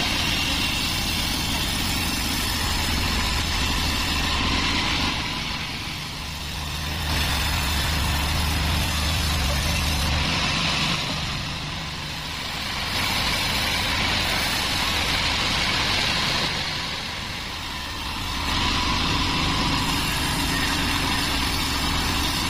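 A large 36-inch band sawmill running, its blade cutting lengthwise through teak logs with a steady low motor hum under a loud sawing hiss. The sound dips briefly three times, between passes through the wood.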